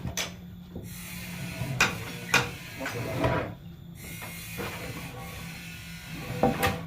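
Sawmill machinery running with a steady low hum, with sharp knocks and clatter from wood and metal every second or two.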